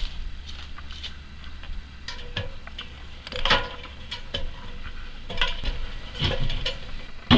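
Scattered light clicks and knocks, a few seconds apart, the loudest about three and a half seconds in: hand tools and gear being handled at the foot of a ladder.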